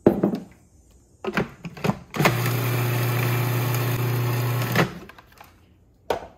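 A knock, then a few plastic clicks as the food processor's lid is fitted, and the electric food processor's motor runs steadily for about two and a half seconds, chopping herbs with olive oil, and then stops. Near the end, a short plastic clatter as the lid comes off.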